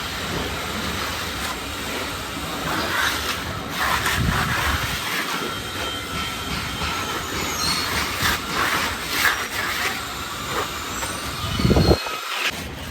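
Steel trowel scraping and smoothing plaster on a wall, a continuous rasping with faint high squeals and short strokes, and a sharper knock about a second before the end.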